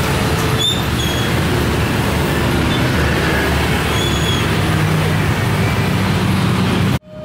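Busy road traffic, mostly small motorcycles and scooters riding past at close range: a steady mix of engine hum and road noise. The sound cuts off abruptly right at the end.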